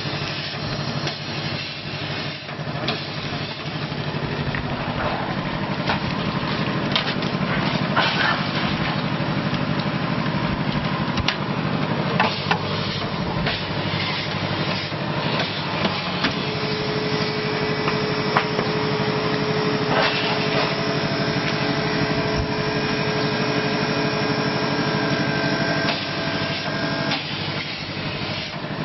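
Food-processing machinery running: a steady motor hum with scattered knocks and clatter, joined about halfway through by a steady whine.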